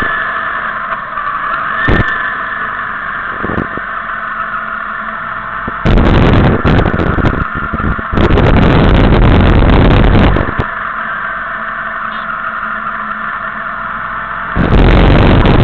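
Motorcycle engine and road noise heard while riding in a group. Loud gusts of wind buffet the microphone about six seconds in, again for a couple of seconds from about eight seconds, and near the end.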